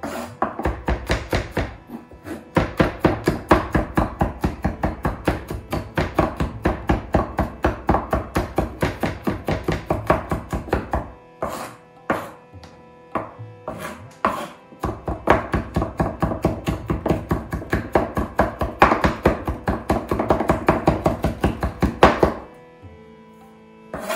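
Chef's knife mincing garlic on a wooden cutting board: quick, steady chops at about four to five a second, with a break of a few seconds around the middle where only a few scattered chops sound.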